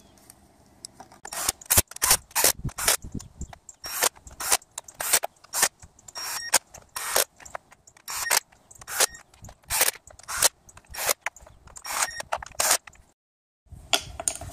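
Hand ratchet clicking in quick repeated bursts as the valve cover bolts on a Hyundai/Kia 2.4 GDI engine are run down. The clicking starts about a second in and stops suddenly near the end.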